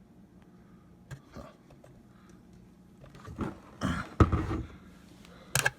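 Handling noise from assembly work: a few small clicks, then about three seconds in a stretch of rustling and knocking with one heavy thump, and a sharp click near the end.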